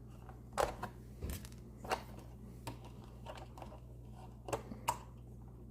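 A few scattered light clicks and taps of small hard objects being handled on a desk, over a steady low hum.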